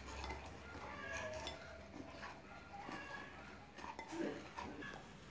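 A rice-flour batter with egg and milk being mixed by hand in a glass bowl: faint, scattered clinks against the glass.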